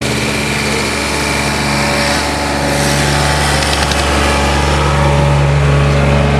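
Diesel engine of a Roper RT garden pulling tractor running hard at a steady pitch under load as it pulls the weight sled, getting a little louder toward the end.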